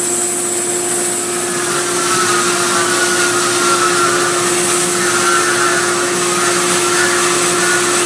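Vertical sawmill powered by a 10 hp electric motor running steadily, with a constant hum and, from about a second and a half in, a higher wavering whine.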